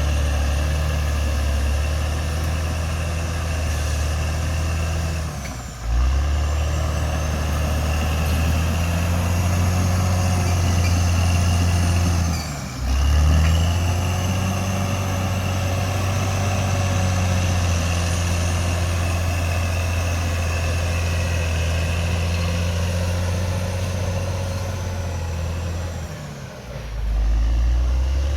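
CAT D6R XL bulldozer's diesel engine running steadily, dipping briefly in pitch and loudness three times, about six, thirteen and twenty-six seconds in, then picking back up.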